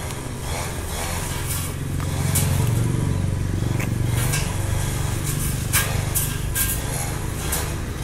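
Engine drone of a grass-cutting machine running steadily in the background, getting louder about two seconds in. Scattered small clicks up close from the snail eating.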